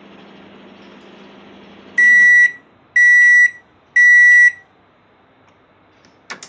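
Eslabón de Lujo microwave oven's steady running hum stopping about two seconds in, followed by three loud, high beeps a second apart: the end-of-cycle signal that the heating run is finished.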